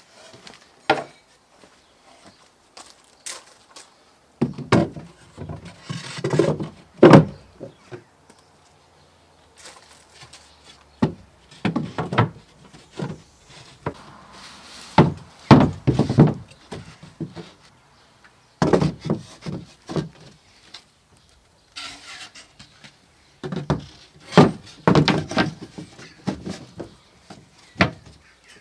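Wooden knocks, thuds and scrapes in irregular clusters, as wooden parts are handled and set down on wood.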